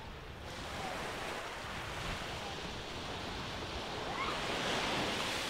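Gentle surf: low waves breaking on a sandy beach and washing up the shore, the wash growing louder about four seconds in.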